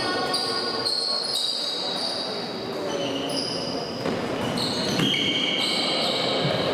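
Sports shoes squeaking on an indoor court floor during play, many short high squeals at changing pitches overlapping one another, with ball bounces in a reverberant sports hall.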